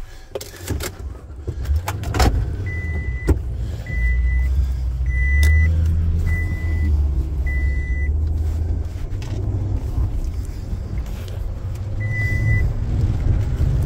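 Pickup truck cab: engine running at a low idle rumble, with a short electronic warning chime from the dashboard sounding five times about a second apart and once more near the end. A few sharp clicks and knocks come in the first few seconds.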